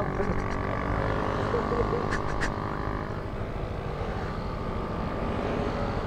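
Motor scooter engine running with a steady, even drone.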